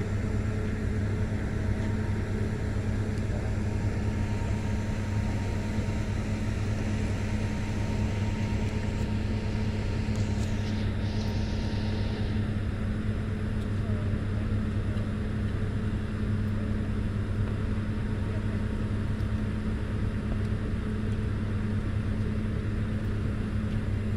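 A steady engine hum, an engine idling without change.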